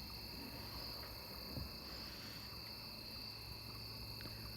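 Steady high-pitched chorus of insects trilling without a break, with one faint low knock about a second and a half in.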